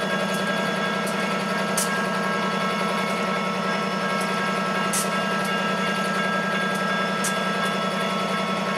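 Diesel-electric freight locomotives idling while stopped: a steady low engine rumble with a constant whine over it, and a few sharp clicks.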